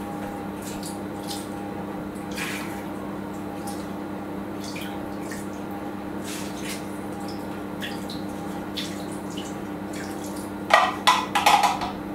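Chicken stock trickling and splashing into a casserole, over a steady low hum. About eleven seconds in, a rattling clatter of metal cookware.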